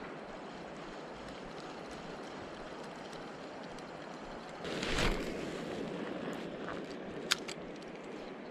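River water rushing steadily. About five seconds in there is a brief louder whoosh, and a couple of seconds later a single sharp click.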